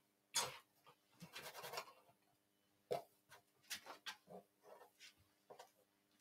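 A comb drawn through a mannequin head's hair in short, soft strokes, a dozen or so scattered brushing sounds, over a faint steady hum.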